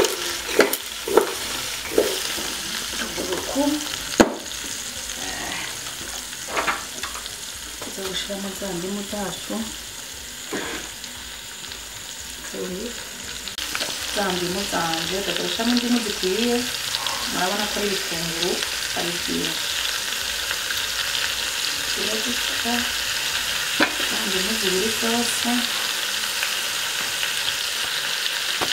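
Meat and sliced onions frying in a metal pot. There are a few knocks as the pot is shaken to toss them near the start, then a steady sizzle that grows louder about halfway through.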